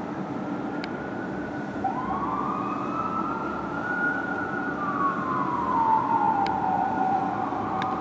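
Fire engine siren in a slow wail: it climbs in pitch, falls away, and starts to climb again near the end, over a steady low rumble.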